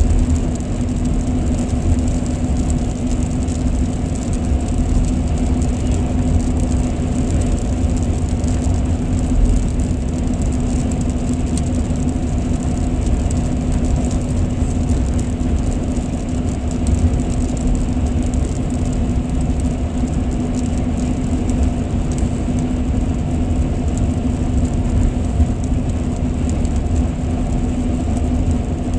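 Steady road noise inside a car's cabin at highway speed: a low tyre-and-engine rumble with a constant hum.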